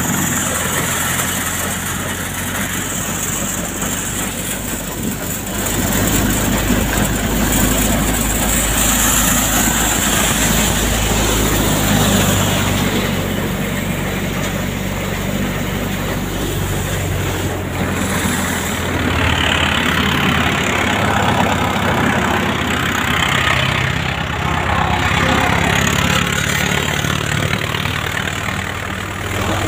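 Engine-driven multi-crop thresher running steadily while soybean plants are fed into it: a constant low engine hum under the rushing noise of threshing and the grain blower.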